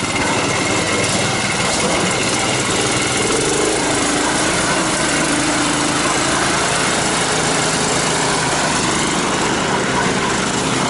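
Engine of a Sibiryak wheeled all-terrain vehicle running steadily, its pitch rising and falling a few seconds in as the machine comes off the obstacle and drives away.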